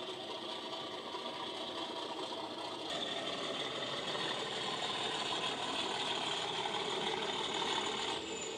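Accurascale Class 37 model locomotive's DCC sound decoder playing its diesel engine sound through the model's speaker, mixed with the clatter of the model's wheels and gears on the track. The sound gets louder about three seconds in and drops a little just before the end.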